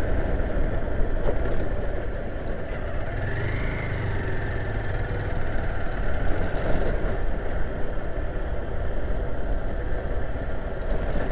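Motorcycle engine running steadily while riding a dirt road, mixed with wind and road noise, with a brief rise and fall in pitch about three seconds in.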